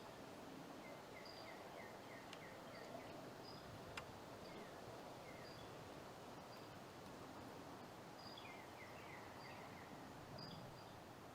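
Faint songbird calls over a steady hiss: scattered short high chirps, and twice a quick run of short falling notes, once near the start and again near the end. A single sharp click about a third of the way in.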